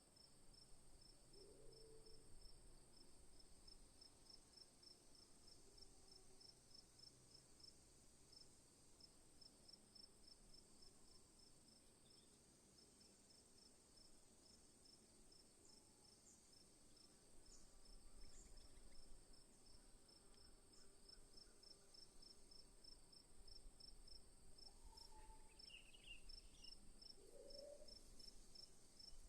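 Faint forest insect chorus: a steady high drone with a fast, even train of cricket-like chirps running over it. A few short animal calls stand out, once early and a couple near the end.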